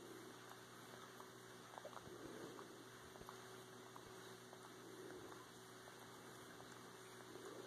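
Faint, wet suckling clicks from a bobcat nursing on a pillow, with a soft swell about every two and a half seconds over a steady low hum.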